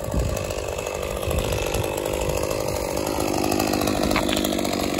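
Gasoline chainsaw running steadily while cutting through the limbs of a downed green conifer.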